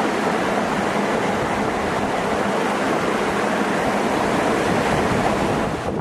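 Waterfall rushing: a loud, steady roar of falling water.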